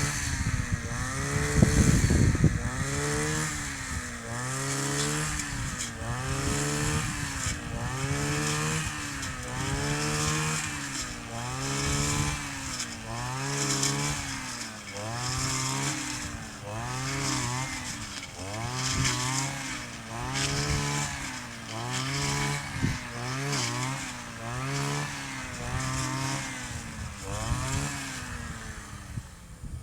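Kioritz 260 two-stroke brush cutter cutting through tough reeds and grass. The engine pitch rises and falls about once a second as the head is swept back and forth, and it fades near the end.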